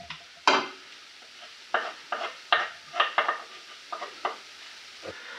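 A spoon stirring a frying pan of garlic, knocking and scraping against the pan about a dozen times at an uneven pace, over a light sizzle.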